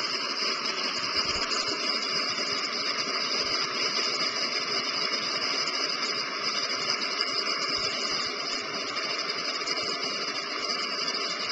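Whitewater rapids rushing: a steady, unbroken noise of churning river water.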